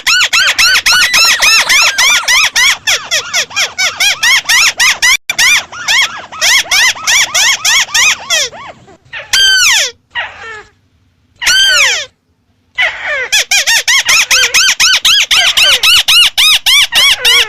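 White-browed crake calling: a fast chattering run of short, rising-and-falling notes, about five a second. The run breaks off a few times past the middle, where a couple of longer falling notes come before the chatter resumes.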